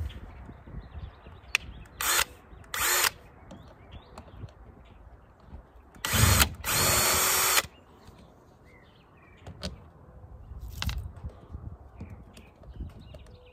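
Cordless drill-driver backing out the screws of a hatch cover on a boat deck, running in several short bursts. The longest and loudest burst, about a second and a half, comes a little past the middle.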